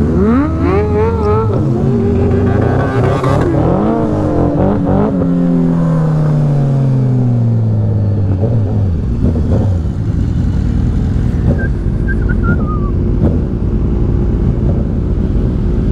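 Suzuki Hayabusa's inline-four engine accelerating hard away from a stop, its pitch climbing through the first second and a half. It then winds down in a long falling drone as the bike slows, and settles into a low steady idle with other sport bikes idling around it. A brief high falling whistle comes from the rider as he brakes.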